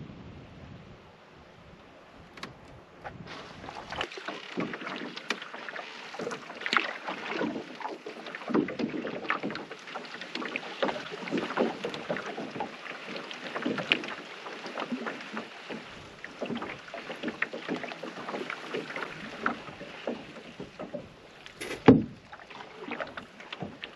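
Canoe being paddled: the paddle dipping and pulling through the water with irregular splashes and drips, picking up after a few quieter seconds. One sharp knock near the end.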